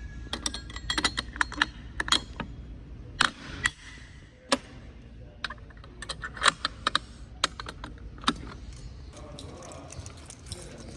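Irregular sharp clicks and clinks, a couple of dozen in uneven clusters, stopping about eight seconds in.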